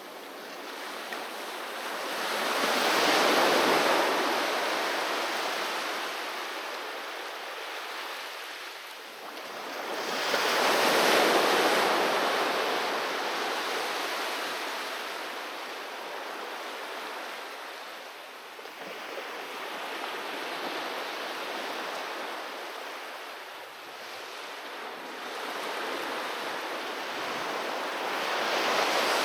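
Sea waves breaking and washing up on a beach, in slow surges that swell and fade roughly every eight seconds, the two biggest about three and eleven seconds in.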